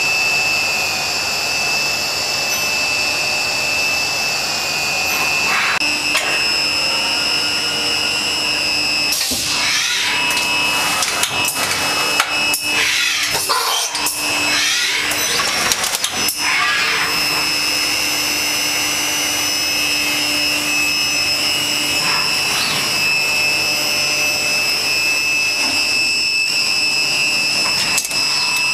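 Stama MC-331 Twin twin-spindle vertical machining centre running, with a steady high whine and a second, higher tone above it. From about a third of the way in, for several seconds, many pitches sweep up and down, with a few sharp clicks.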